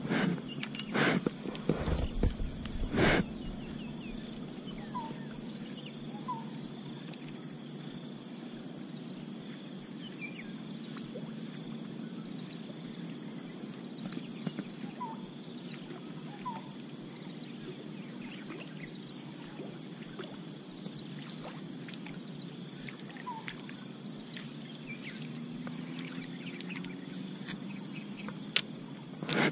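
Waterside insect chorus, a steady high buzz, with a few faint short chirps scattered through it. A few loud thumps in the first three seconds and one sharp click near the end.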